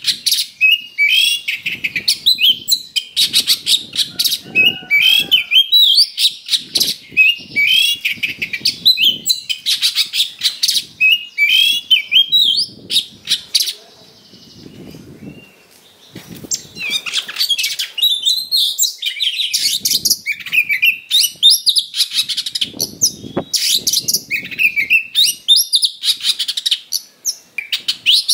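Oriental magpie-robin singing vigorously in fighting-style song: a rapid string of loud chirps, whistles and rising and falling notes, broken by a short pause about halfway through.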